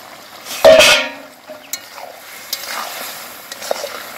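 A metal spatula stirs and scrapes chicken in spice paste in a hot iron karai, with sizzling as the meat is sautéed down (kosha). About a second in there is a loud clank with a short ring and a burst of hiss, followed by steadier sizzling and intermittent scrapes.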